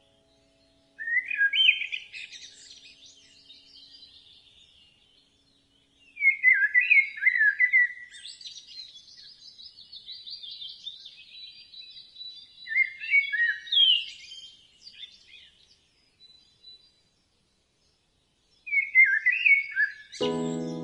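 Birdsong: four loud bouts of quick, high chirps and trills, roughly every five to six seconds, with softer twittering between them.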